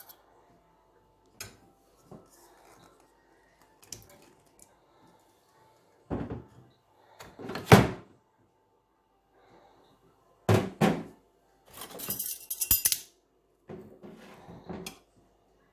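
Kitchen handling sounds: separate knocks and clinks of dishes, pans and utensils being set down and moved, with a brief rattling clatter a little past the middle.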